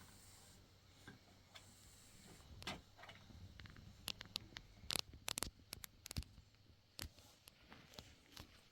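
Scattered light clicks and taps at an irregular pace, bunched and loudest around the middle, over a faint background.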